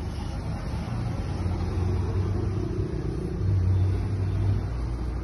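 A motor vehicle's engine running with a steady low hum that swells louder twice, about one and a half seconds in and again near four seconds.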